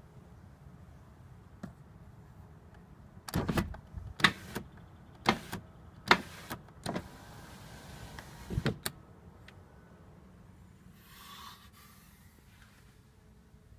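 A series of sharp clicks and knocks, irregularly spaced over about five seconds, followed by a brief soft rustle.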